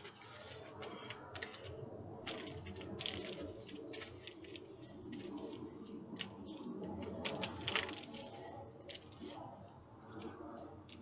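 Irregular clicks and taps from hooping with an LED hula hoop on a wooden deck: the plastic hoop knocking against hands and body as it is spun and caught, and feet shifting on the boards.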